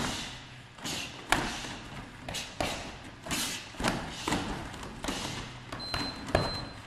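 Repeated strikes landing on a free-standing heavy punching bag: about a dozen thuds in quick, uneven succession, each echoing briefly.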